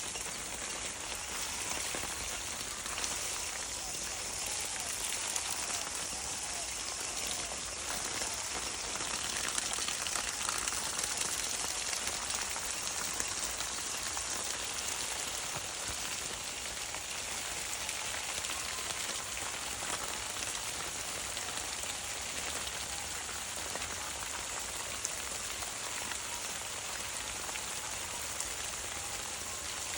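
Steady rain falling, an even hiss with occasional faint drop ticks.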